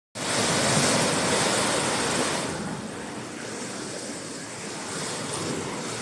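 Sea waves breaking and washing in among rocks on a rocky shore. The surge is loudest for the first two and a half seconds, then eases off and swells slightly again near the end.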